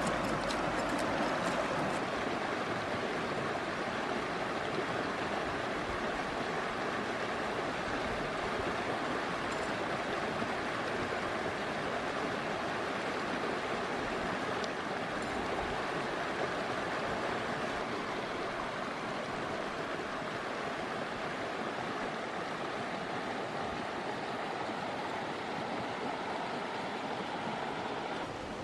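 Shallow stream rushing over rocks: a steady wash of running water.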